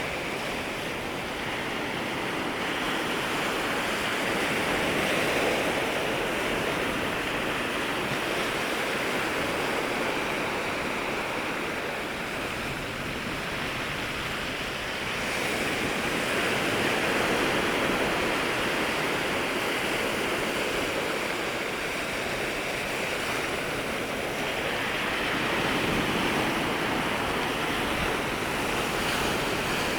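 Ocean waves washing in at the shoreline, a steady surf hiss that swells and eases every several seconds as waves break and run up the beach.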